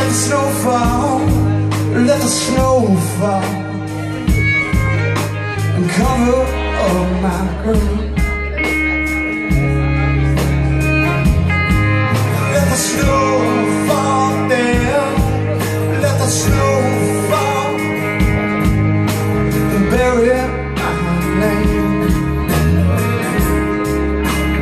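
Live band playing an instrumental passage of a country-rock song, with electric and acoustic guitars over a steady beat and bass.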